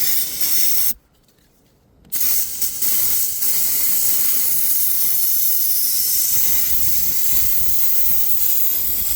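Aerosol brake cleaner spraying: a short burst, a pause of about a second, then one long steady spray lasting about seven seconds.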